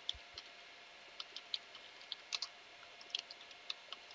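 Computer keyboard keys being typed: a string of faint, irregular key clicks, more than a dozen in a few seconds.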